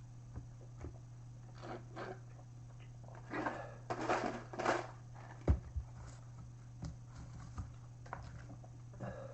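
A person eating a fried hot chicken sandwich: scattered small clicks and crinkly rustles of chewing and handling, busiest around four seconds in, with a sharp knock a little after. A steady low electrical hum runs underneath.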